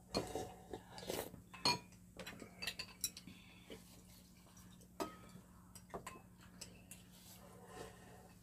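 A spoon and chopsticks clinking and tapping against ceramic bowls at a meal. There is a busy run of clinks and clatters in the first few seconds, then a few single clicks.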